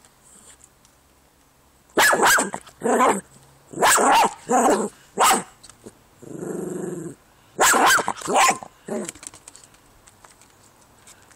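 Jack Russell terrier barking excitedly in two runs of short barks, with a low growl of about a second between them.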